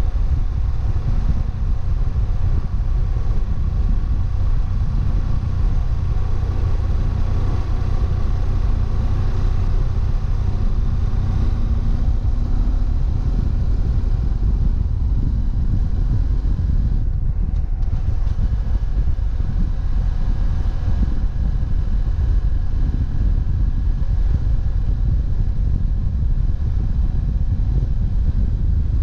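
BMW F700GS parallel-twin engine running while the motorcycle is ridden at speed, under a steady rush of wind and road noise. The engine note stays fairly even and drifts up a little around the middle.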